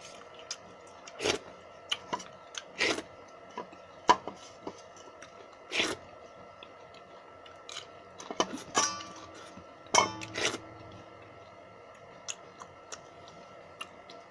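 Eating watered rice by hand from a steel bowl: scattered clicks and taps of fingers against the bowl, with mouth sounds of chewing, and a busier patch of clinks about two-thirds of the way through.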